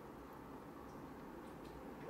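Faint light clicks from the steel steam wand of an espresso machine being swivelled by hand, a few irregular ticks over quiet room tone.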